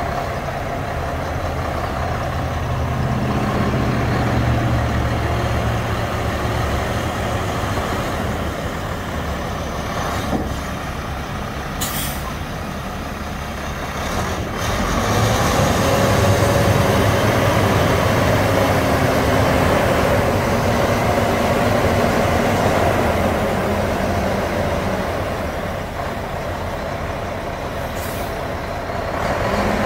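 2006 Mack CNH613 diesel truck tractor idling steadily, its engine sound growing louder for a stretch in the middle, with a couple of short hisses of air.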